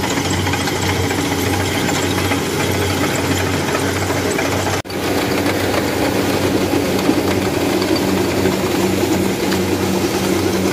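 Rice combine harvester running steadily with a constant mechanical hum as it cuts and threshes lodged rice. There is a brief break about five seconds in, after which the machine is heard up close from on board, a little louder.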